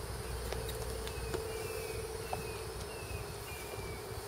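A flying insect buzzing steadily, with a few short, high, falling chirps and a couple of faint clicks over a low rumble.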